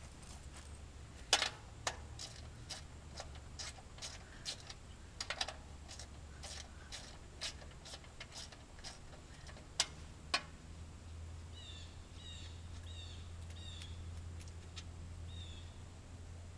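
A string of sharp clicks and knocks, roughly two a second, with a few louder ones, from hand work on the lawnmower. In the second half a small bird chirps a short call several times.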